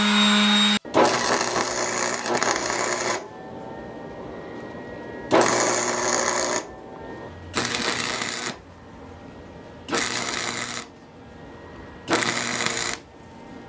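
Cheap Harbor Freight flux-core wire-feed welder crackling and spattering in five short bursts of welding: the first about two seconds long, the rest about a second each, with quiet pauses between. A steady hum cuts off just under a second in.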